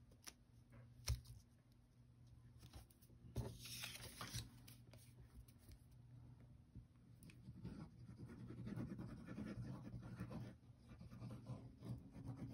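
Quiet paper handling: faint rustling and scraping of patterned cardstock being pressed and smoothed down on a card front, with a couple of light taps.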